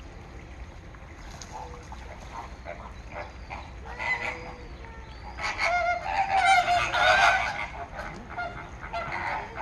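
Birds calling with repeated honking cries, at first scattered and faint, then a loud run of rapid calls from about five and a half to seven and a half seconds in.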